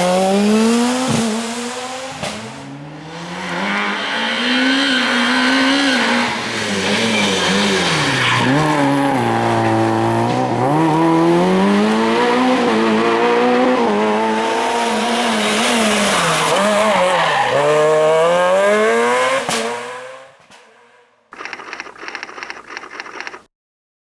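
Rally car engine revving hard at full throttle, pitch climbing and dropping again and again with gear changes and lifts off the throttle, then fading away about 20 seconds in. A brief, different sound follows near the end and cuts off.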